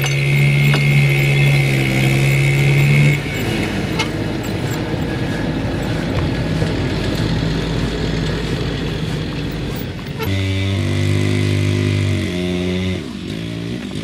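An engine running with a steady hum that shifts in pitch about three seconds in and again about ten seconds in, then rises and falls near the end.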